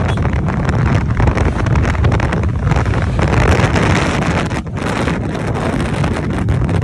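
Heavy wind buffeting on the microphone of a moving motorcycle, a steady low rumble with the bike's riding noise beneath it.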